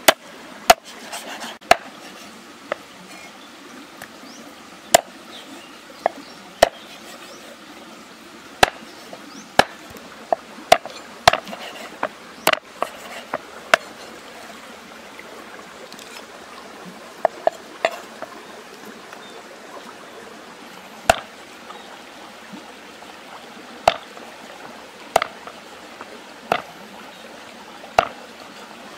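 Heavy cleaver chopping raw chicken and other ingredients on a thick round wooden chopping board. It makes sharp single knocks at uneven intervals, now close together and now a few seconds apart, over a steady background hiss.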